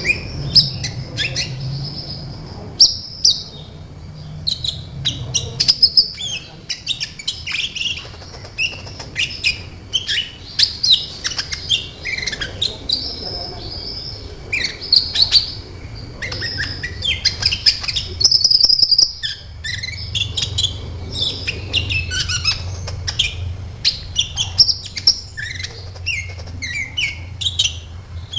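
Sunbird song: a rapid, unbroken stream of high, thin chirps and short twittering trills, over a faint low hum.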